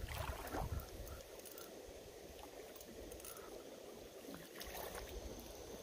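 Spinning reel being cranked to retrieve line, a faint sound with light clicks, over the soft running of a creek.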